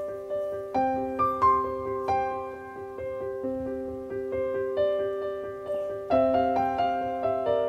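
Background piano music: gentle notes and chords struck and left to ring, several a second.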